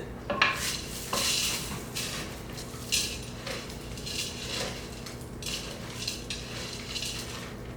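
A utensil stirring a thick dough of peanut butter, flour and Cheerios in a mixing bowl, with irregular scrapes and knocks against the bowl.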